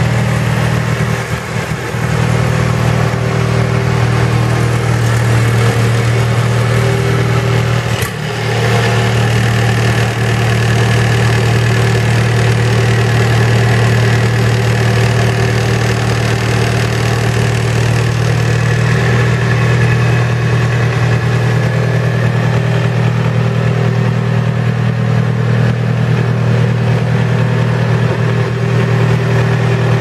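Diesel engine of a Husqvarna FS4800D walk-behind concrete saw running steadily at idle, with a single sharp click about eight seconds in.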